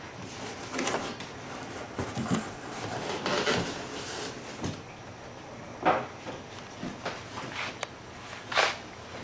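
Cardboard shipping box and packaging being opened and handled: uneven scraping and rustling, with sharper scrapes about six and eight and a half seconds in.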